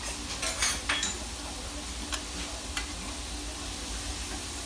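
Food sizzling on an iron griddle, with a metal spatula clicking and scraping against the plate a few times.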